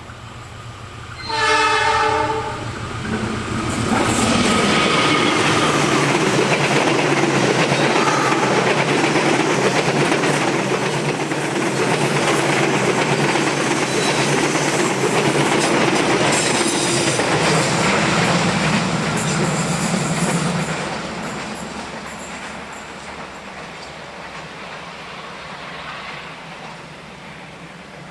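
Passenger train with a diesel locomotive: the locomotive's multi-tone horn sounds one short blast about a second in. Then the train passes close by, wheels running loud over the rails for about seventeen seconds, and the sound fades away near the end.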